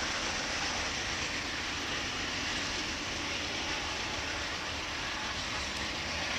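A train passing, giving a steady rushing noise of wheels rolling on the rails with a low rumble underneath.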